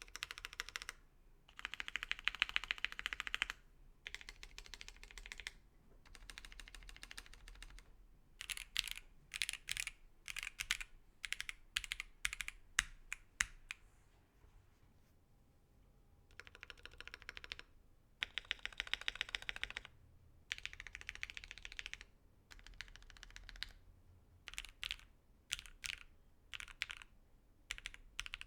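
Typing on a mechanical keyboard with JWK Dogikon linear switches (a Voice65 board), in passages of quick keystroke runs and separate presses with short pauses between them. These are back-to-back samples of stock switches and switches lubed with Krytox 205g0 and fitted with films.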